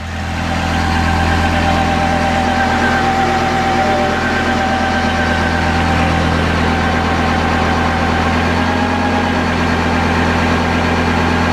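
Kubota B7100 tractor's three-cylinder diesel engine running steadily while driving a PTO generator under an electrical load, its RPM pulled down slightly by the load.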